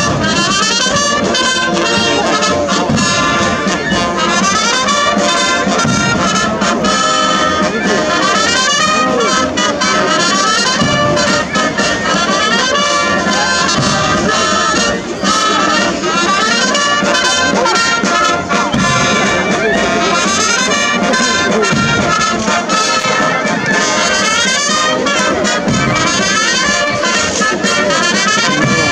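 Military brass band playing a march.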